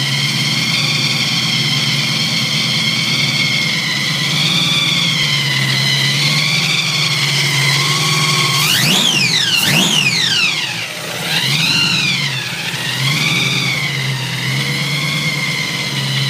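Supercharged 502 cubic-inch big-block V8 in a 1967 Camaro idling, with a high blower whine over the idle. About halfway through, the throttle is blipped by hand: two sharp revs, then a couple of lighter ones, the whine rising and falling with the revs.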